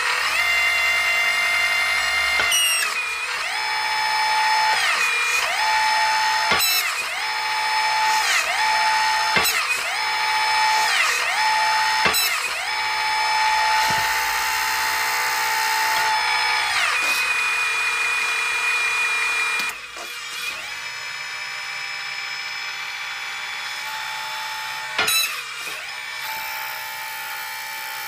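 Scale model wheel loader's motor-driven hydraulic system running with a steady, multi-toned whine whose pitch sags and recovers again and again as the servo-worked valves move the boom and bucket, then settles quieter and steadier for the last several seconds.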